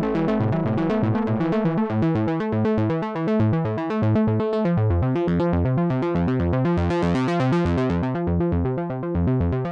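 Behringer 2600 analog synthesizer playing a fast, repeating run of short notes. About five seconds in the pattern moves lower, and around seven seconds the tone briefly brightens.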